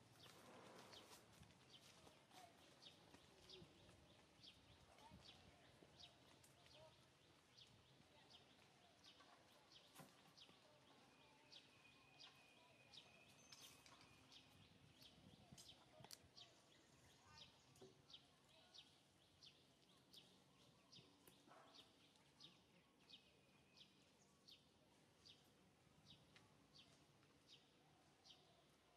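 Near silence: faint outdoor background with short high chirps repeating about twice a second.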